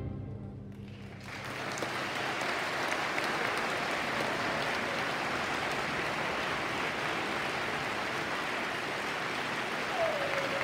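The last orchestral chord dies away in the hall's reverberation. About a second in, the audience breaks into steady applause. A voice calls out over the clapping near the end.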